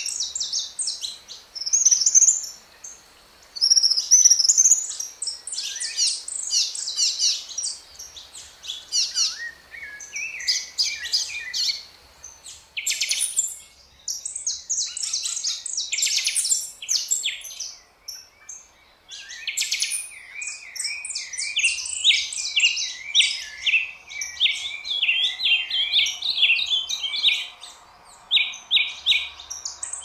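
Several wild Brazilian songbirds singing at once: overlapping phrases of quick chirps and fast trills, with a few short pauses.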